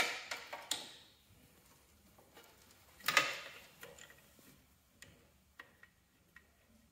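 Wrench and metal hydraulic fitting clicking as the fitting on the tractor's hydraulic control valve is turned to loosen it on its O-ring. One louder metallic clank comes about three seconds in, followed by faint, light ticks.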